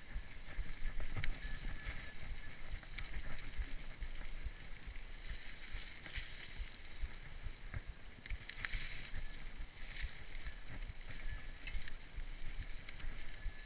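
Mountain bike rolling over a leaf-covered dirt trail, heard close from the handlebars: a constant low rumble with frequent clicks and knocks as the bike rattles over bumps.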